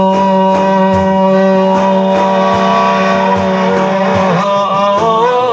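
A man singing an Arabic devotional song in praise of the Prophet, holding one long steady note for about four seconds, then breaking into a wavering, ornamented run near the end.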